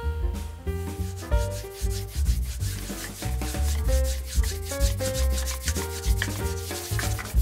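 A wooden stirrer whisked fast around a glass of oil-based salad dressing, its repeated strokes rubbing and scraping against the glass as the dressing is mixed. Background music plays underneath.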